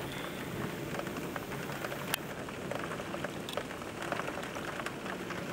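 Heavy downpour: a steady hiss of rain with scattered sharp ticks.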